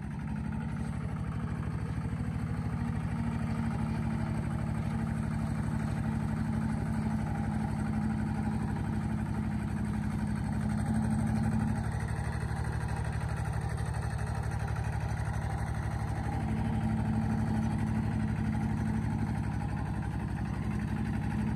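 Vehicle engine running steadily, a low drone whose pitch shifts slightly about halfway through.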